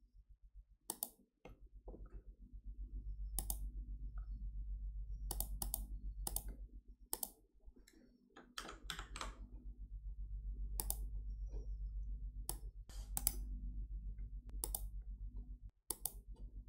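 Computer mouse clicks, single sharp clicks every second or two, with a short run of keyboard typing about nine seconds in. A steady low hum runs underneath.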